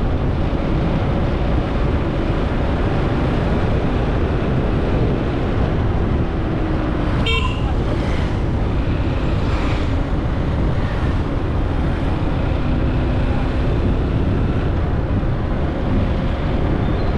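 Road traffic with a steady low rumble of engines, and a short vehicle horn toot about seven seconds in.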